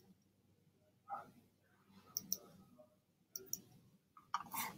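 Computer mouse clicking, a few sharp clicks in quick pairs. A short hiss of noise comes near the end.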